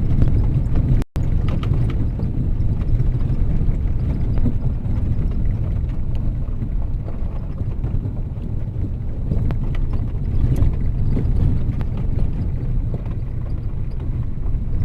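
Vehicle driving on a rough dirt and gravel road, a steady low rumble with the crunch and rattle of tyres over stones.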